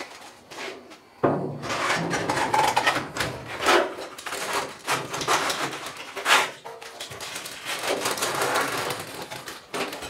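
Fisker Karma battery pack's long cover being set down on the pack and worked into place: a knock about a second in, then scraping and rubbing with a few sharper knocks.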